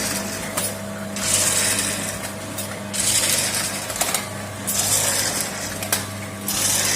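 Automatic vertical form-fill-seal snack packaging machine running: a steady mechanical hum with a hiss that recurs about every second and a half to two seconds in time with its bagging cycle, and a few sharp clicks.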